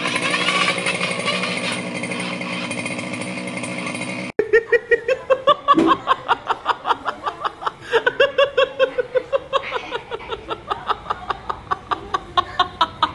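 Small petrol engine of a motorised palm tree-climbing machine running steadily as it climbs the trunk. About four seconds in, it cuts off abruptly and a fast, even run of short pitched pulses follows, about four a second.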